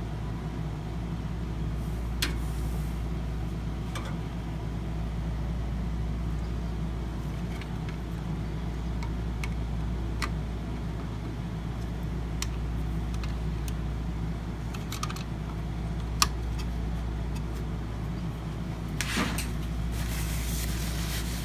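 Steady low background hum, like an air conditioner or room machinery, with a few light clicks and taps scattered through it, the loudest cluster near the end.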